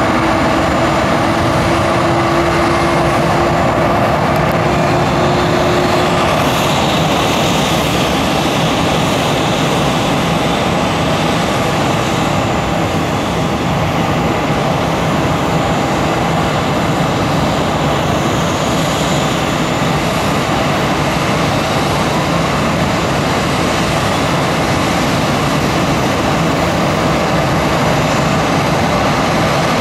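Boeing 737-800's CFM56-7B turbofan engines running steadily, a constant even noise with faint steady tones and no change in level.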